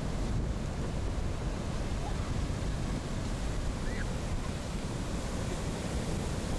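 Wind buffeting the microphone over the steady wash of high storm surf.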